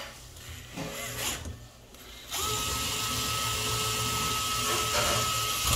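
DeWalt cordless screwdriver running at a steady speed for about three and a half seconds, driving in a shower trim plate screw. It starts a couple of seconds in, after a few light handling clicks, and stops sharply.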